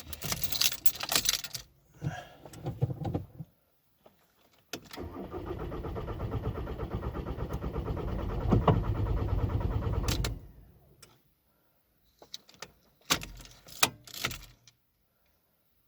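VW 1.9 TDI diesel engine cranking on the starter for about five seconds with a rhythmic chugging, then stopping without ever firing: a crank-no-start, which the owner puts down to a broken wire giving no engine speed (crankshaft position) sensor signal. Short jangling clatter, like keys, before and after.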